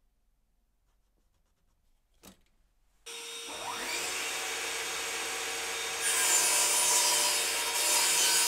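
Near silence with a single click, then about three seconds in a benchtop table saw switches on and runs up to speed with a steady whine. Around six seconds in, the blade starts cutting down a piece of 18 mm plywood, and the sound grows louder and hissier.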